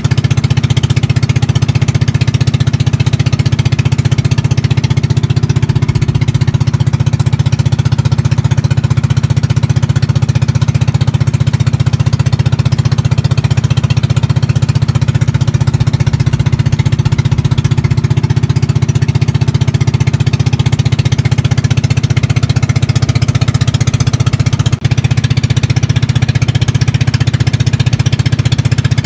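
Small boat's engine running steadily under way, a fast, even chugging beat, with a momentary break about 25 seconds in.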